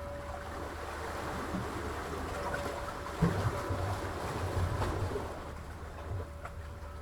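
Sea waves washing with a steady low rumble, and a single dull thump about three seconds in.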